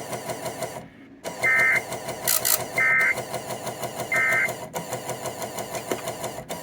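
Emergency Alert System end-of-message data bursts: three identical short, buzzy digital tone bursts about 1.3 s apart, signalling the end of the warning message. They come just after a brief dropout, over steady receiver hiss and hum.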